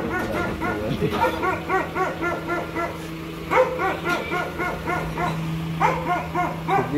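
Dogs barking and yipping in quick short yelps, one after another, over a steady low hum.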